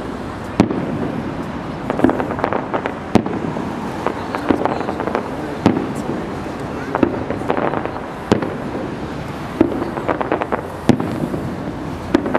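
Aerial firework shells bursting one after another, a sharp bang about every second and a quarter, several of them followed by a quick cluster of smaller crackling pops.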